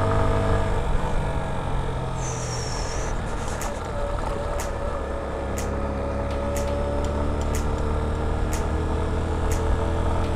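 Italika Z150 motorcycle's single-cylinder four-stroke engine running under way, its pitch shifting slightly with the throttle, over steady wind rush on the rider-mounted microphone. A faint click comes about once a second.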